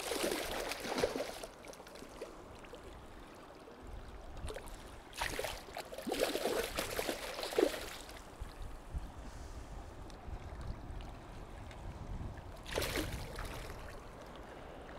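A hooked sockeye salmon thrashing and splashing at the surface of shallow river water, in three bouts: right at the start, a longer spell in the middle, and a short one near the end. Under it runs the steady rush of the river.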